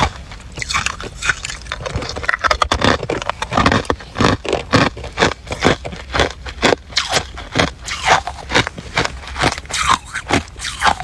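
A person biting and chewing hard ice, with many sharp crunches and crackles in quick, irregular succession.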